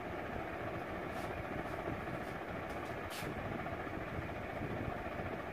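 Steady low background rumble with a few faint short strokes of a marker on a whiteboard, the clearest about three seconds in.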